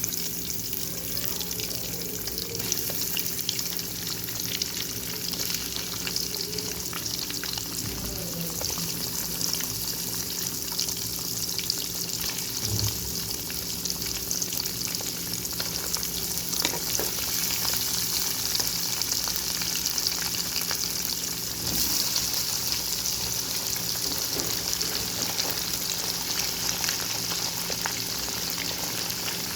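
Food frying in hot oil in a pan: a steady sizzling hiss, with occasional light clicks and scrapes from stirring.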